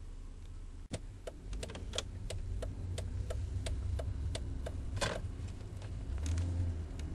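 Low steady rumble inside the cabin of a moving Volvo S80 T6. About a second in, a run of regular sharp ticks starts, about three a second.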